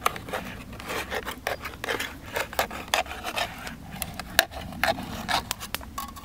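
Irregular metal scraping and clicking at a tin of stewed beef (tushonka), the tin being worked open and its meat dug into.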